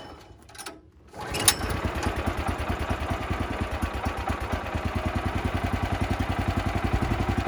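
Woodland Mills HM126 sawmill's pull-start gasoline engine catching about a second in, then running steadily with an even beat: a cold start after the mill has sat unused for a while.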